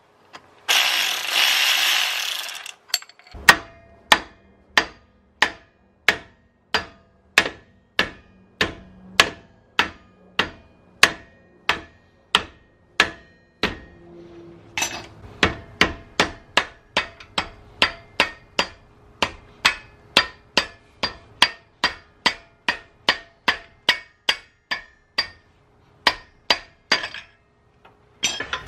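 A hand ratchet spinning for a couple of seconds. Then steady hammer blows on the end of the Nissan 350Z's rear axle shaft in the hub, about two a second with a short break midway, knocking the splined shaft loose so the axle can come out.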